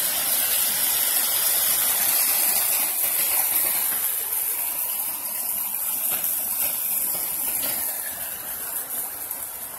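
Sewage water gushing up out of the street pavement and running across the road, a steady rushing hiss that grows somewhat fainter over the second half.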